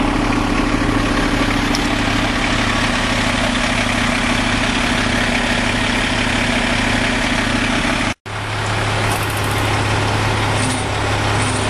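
Diesel engine of a 2009 KME pumper fire engine (Caterpillar C-13) idling with a steady low hum. The sound cuts out for an instant about eight seconds in, then the same steady idle carries on.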